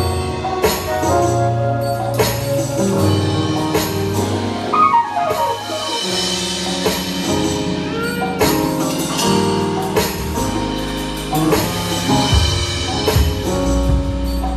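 A live gospel band playing: a drum kit with cymbals, bass guitar and keyboards. About five seconds in, a falling glide in pitch runs down through the music.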